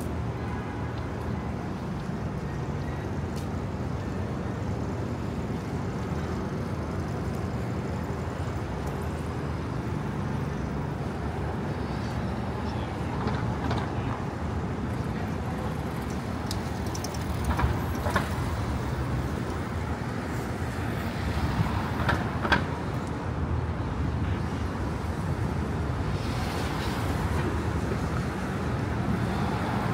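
Steady city street traffic: a continuous low rumble of passing vehicles, broken a little past the middle and again a few seconds later by a few brief, sharper sounds.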